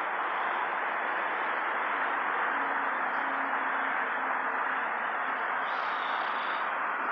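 Steady, even hiss, with a faint low hum in the middle seconds.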